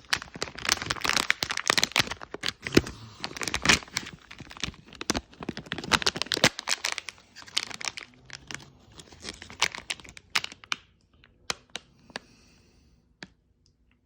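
Crinkling and rustling of a plastic pack of resistors being handled, with many sharp clicks, thinning to a few scattered clicks and taps after about ten seconds.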